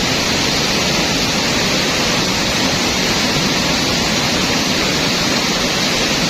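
Fast river water rushing steadily, an even noise with no breaks.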